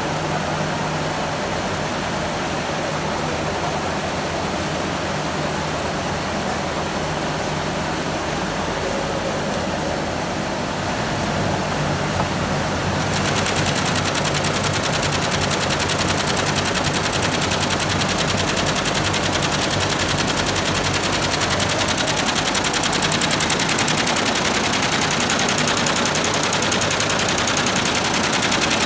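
Computerised embroidery machine stitching at speed: a steady, rapid mechanical clatter of needles and drive that grows louder and brighter about halfway through.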